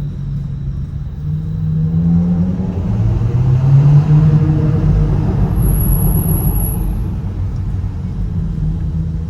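Audi B9 S4's turbocharged V6 running through a stock exhaust with a cat delete, on an ECU tune. The revs climb twice, the second time to the loudest point, then the engine settles to a steady note.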